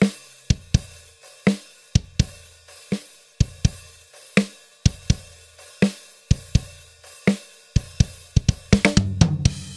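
Sampled acoustic drum kit playing a beat of sharp kick, snare and cymbal hits, about two a second, with a fast run of hits near the end. It plays through a transient designer on the master bus with some of the lower mids scooped out, and it sounds punchy.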